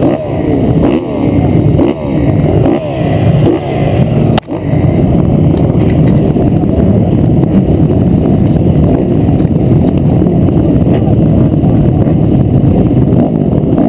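A row of 250cc four-stroke motocross bikes revving at the start gate: throttles blipped up and down for the first few seconds, then many engines held at high revs together.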